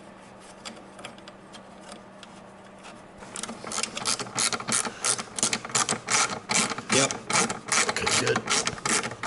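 Hand ratchet wrench clicking in quick back-and-forth strokes as bolts are tightened. The clicking starts about three seconds in, after a quieter stretch with a few faint ticks.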